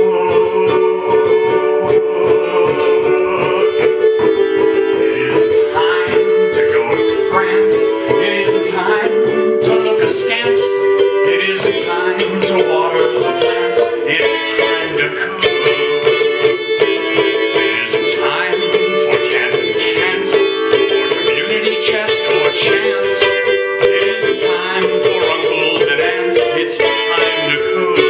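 Live instrumental music: a ukulele plucked and strummed over a steady held note that runs underneath.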